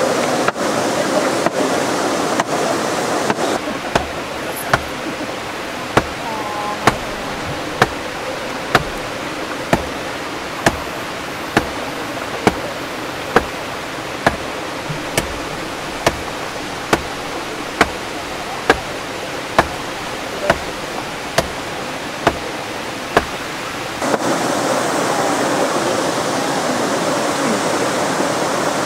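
Hammer blows on wood inside the stone hatch of an aqueduct bridge's sluice, a sharp knock about once a second, over the steady rush of water. The knocking stops near the end and the water sound grows louder.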